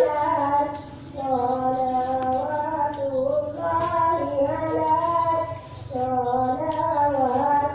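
An unaccompanied voice singing a slow melody in long held notes that step up and down, with two short breaks.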